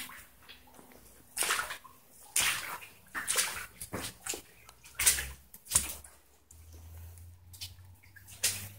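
Footsteps crunching on wet ground and debris, a step roughly every second, each one short and gritty.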